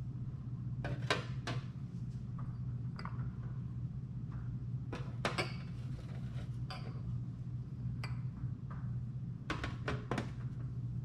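Glass dessert cups and jars of panna cotta being set down one by one on a baking tray, with a series of short glass knocks and clinks, over a steady low hum.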